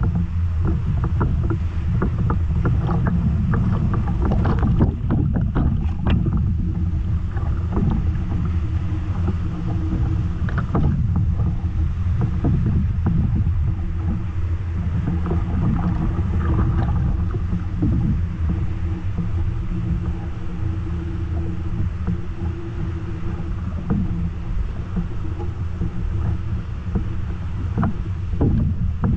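Whitewater rapids in a river canyon at high flow, about 430 cubic metres a second, making a steady deep rush, with many close splashes of water against the kayak and paddle.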